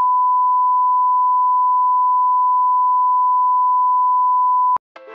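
Steady 1 kHz broadcast line-up test tone accompanying colour bars, one unbroken pure beep that cuts off sharply near the end. Keyboard music starts just after it stops.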